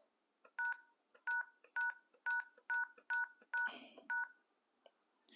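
Keypad tones of an ECG-900 GSM fixed wireless desk phone: eight short two-tone beeps, about one every half second, each one a key press as its menu is stepped through.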